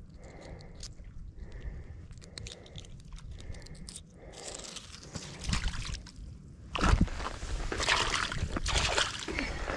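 Footsteps crunching on wet gravel at the water's edge, with some sloshing of water; faint at first, then louder and rougher from about seven seconds in.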